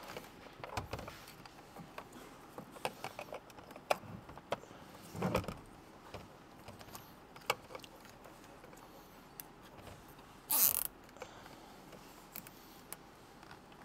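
A nylon zip tie being fastened around a plastic module and its wiring harness. Scattered small plastic clicks and wire rustling, then about ten and a half seconds in a short, louder rasp as the tie is zipped tight.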